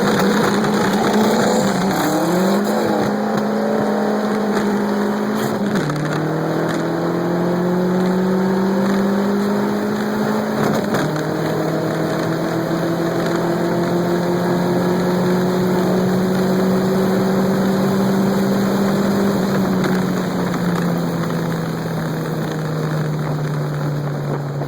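Dodge SRT-4's turbocharged four-cylinder engine pulling hard at wide-open throttle in a drag race. The pitch drops sharply at upshifts about 2, 6 and 11 seconds in, then holds steady under load before easing off near the end.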